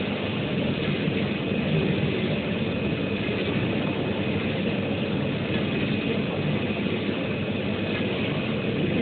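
UV flatbed printer running as its print carriage shuttles over the bed: a steady mechanical whirr with a faint, even high whine.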